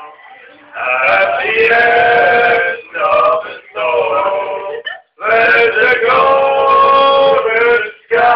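Drunken men singing loudly in drawn-out, held notes, in phrases of one to three seconds broken by short pauses.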